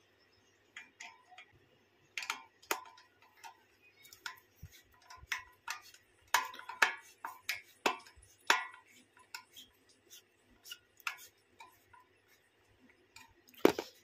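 Irregular light metallic clicks and taps from a ceiling fan motor housing being handled and turned by hand, with a louder knock near the end.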